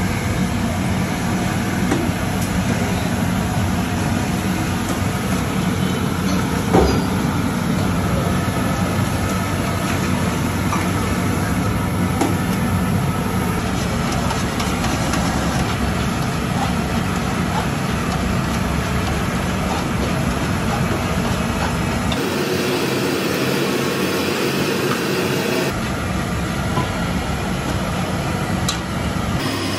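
Steady low rumble with hiss from a large pot of milk tea boiling hard over a burner, with faint voices underneath and one sharp knock about seven seconds in.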